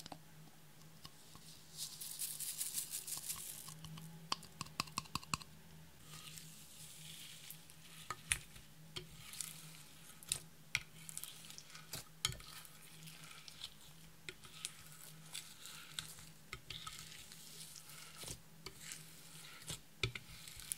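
Clear slime laden with loose glitter and sequins being folded and kneaded by hand in a glass dish: wet squishing with irregular crackling clicks. A hissing rush and a quick run of clicks come in the first few seconds.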